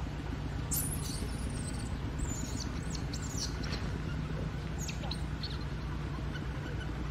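Several short, high-pitched chirping calls, many falling in pitch, scattered over a steady low hum of outdoor background noise.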